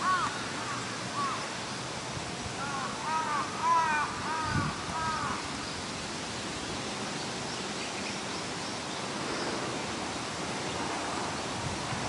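A bird calling in quick series of short calls, once at the start and again about three to five seconds in, over steady outdoor wind noise.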